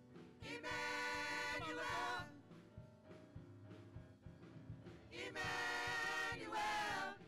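Small gospel choir of women singing into microphones over instrumental accompaniment. Two long sung phrases come, one about half a second in and one about five seconds in, each bending in pitch at its end.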